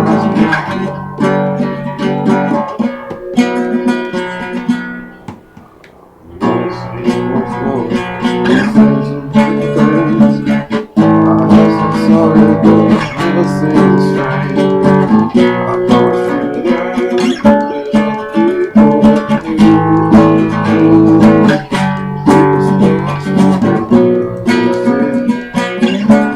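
Acoustic guitar strumming chords in an instrumental break of a folk-rock song, with a brief near pause about five seconds in before the strumming resumes.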